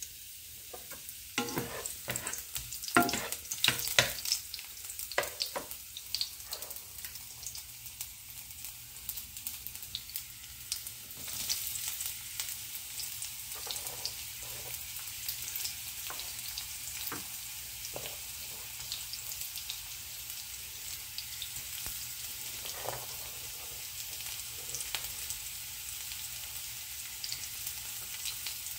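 Garlic cloves and sliced red onion frying in oil in a nonstick frying pan: sizzling, with sharp crackles and pops in the first few seconds, then a steadier, slightly louder sizzle once the onion is in.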